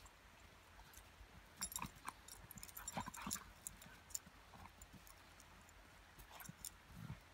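A Groenendael and a golden retriever play-wrestling in snow: faint scuffling and mouthing noises, with a cluster of short clicks and snaps between about one and a half and three and a half seconds in.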